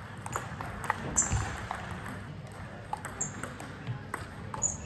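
Table tennis rally: the ball clicking sharply off the paddles and the table about every half second, with a few short high squeaks among the hits.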